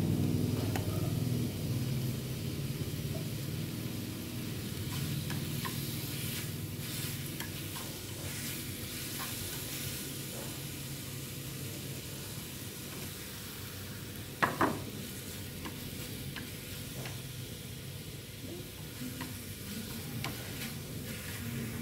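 Pork belly sizzling and frying in a pan on a gas burner while it is stirred with chopsticks, which tap and scrape against the pan now and then. About two-thirds of the way through there is one sharper double knock, the loudest moment.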